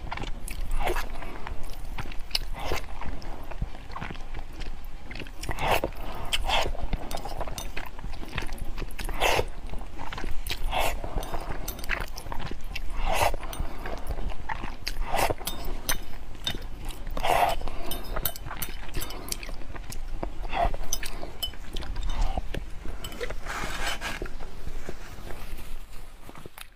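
A person slurping and chewing spicy instant noodles: repeated wet slurps of noodle strands with chewing between them, one every second or two.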